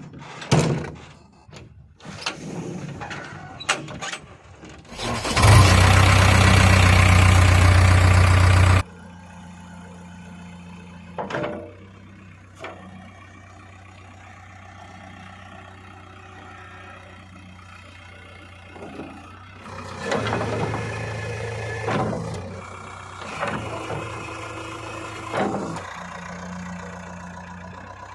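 Heavy diesel machinery running: a steady engine hum with a few rises in engine speed, a few knocks early on, and a loud three-second stretch of noise about five seconds in that starts and stops abruptly.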